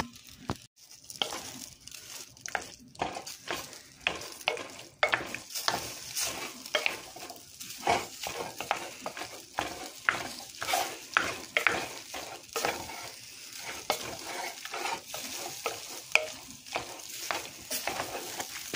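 Wooden spoon stirring rotini and shrimp through a mashed tomato-and-feta sauce in a baking dish: irregular wet scrapes and clacks of the spoon against the dish.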